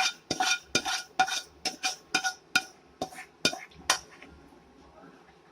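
A metal spoon clinking and scraping against a metal cooking pot, about a dozen quick ringing strikes as cooked dalia is served out, stopping about four seconds in.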